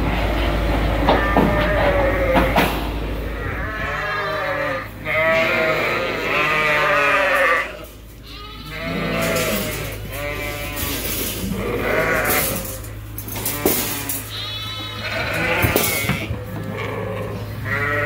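A flock of sheep bleating over and over, many calls overlapping. A low steady hum sits underneath for the first couple of seconds, and there are a few knocks.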